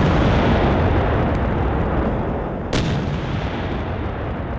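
Tank gunfire over a continuous heavy rumble, with one sharp cannon crack a little under three seconds in.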